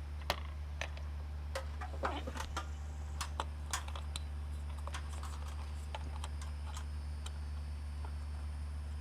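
Small sharp metal clicks and taps from a screwdriver and the light fixture's metal parts as its mounting screws are driven in. The clicks come in quick clusters over the first few seconds, then thin out to single ticks. A steady low hum runs underneath.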